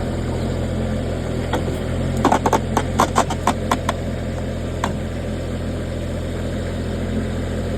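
The 23 hp diesel engine of a Rippa NDI665 mini skid steer running at a steady speed. Between about one and a half and five seconds in, a run of about a dozen sharp clacks sounds over it.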